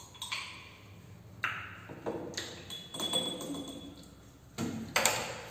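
A metal spoon clinking against a small glass jar, with a brief ringing ping a few seconds in, among scattered knocks and handling noises of tableware on a wooden table.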